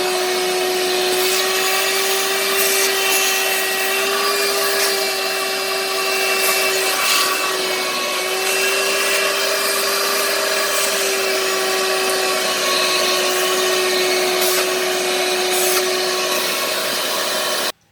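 Shop vac running steadily with a constant hum, vacuuming dust out of window air-conditioner filters, with occasional short clicks as the nozzle works over the filter. It cuts off abruptly near the end.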